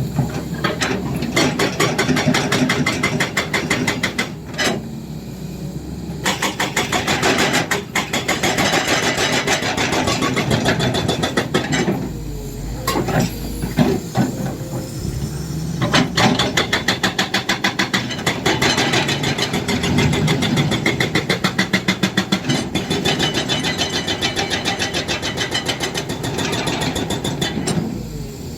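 Excavator-mounted hydraulic breaker hammering with rapid, evenly spaced blows over the excavator's diesel engine, in long runs broken by two short pauses, about a quarter and halfway through.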